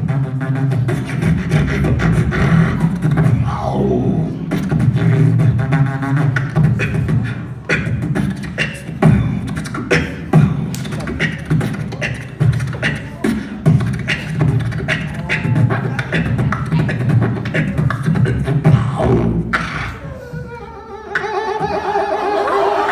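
Beatboxing into a handheld microphone through a PA: a dense rhythm of sharp mouth-made drum sounds over a steady low bass tone. About 20 seconds in it drops back briefly, then held pitched vocal tones that bend up and down take over.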